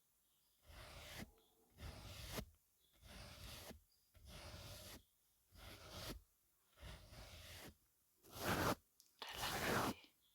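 Makeup brush strokes swishing against the microphone, about eight strokes roughly a second apart with short silences between them. The last two strokes, near the end, are louder.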